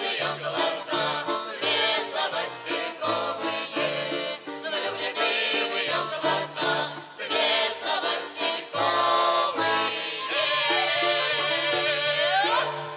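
Russian folk ensemble music played to the end of a song: a steady beat of bass notes under pitched melody and jingling percussion, closing on a long held final chord that stops near the end.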